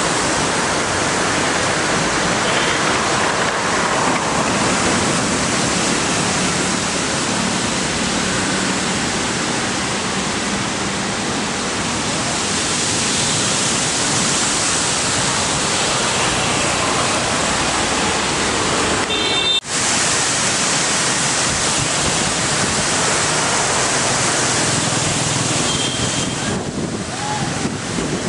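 Strong storm wind rushing through tree foliage and buffeting the microphone: a loud, steady rush of noise. It drops out for an instant about twenty seconds in.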